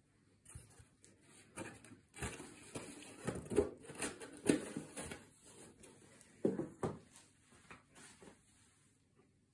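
Cardboard boxes being handled and set down on a hard floor: rustling cardboard and a scattering of light knocks, the loudest a little after halfway.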